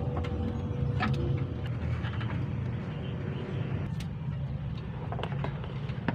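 A steady low mechanical drone, with a faint steady tone fading out in the first second or so and a few short light clicks and knocks.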